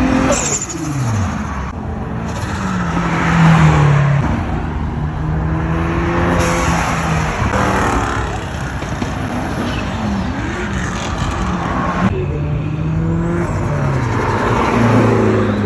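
Turbocharged car engine revving up and letting off again and again, with turbo flutter on lift-off. The engine pitch falls sharply about half a second in, holds steady for a few seconds, then rises and drops several more times.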